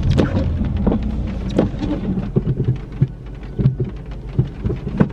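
Raindrops hitting the car's roof and windscreen, many irregular sharp taps over the low hum of the car's engine and tyres, heard from inside the cabin. The hum drops a little about halfway through.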